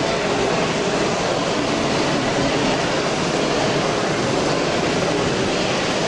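Steady background noise of a busy hall, an even hiss and murmur that does not rise or fall.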